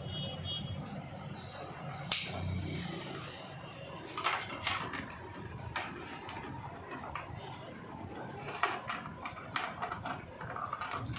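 Scattered plastic clicks and knocks as tubing and push-fit fittings are handled inside a plastic RO water-purifier cabinet, with the sharpest knock about two seconds in.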